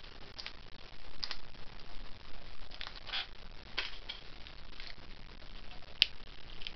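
Shell of a soft-boiled egg being picked off by hand: small scattered crackles and clicks, with one sharper click about six seconds in.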